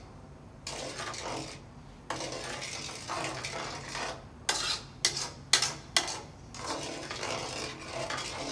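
Spoon scraping and clinking against a cooking pot as sugar is added and stirred into the hot palmyra fruit pulp, with several sharp clinks around the middle.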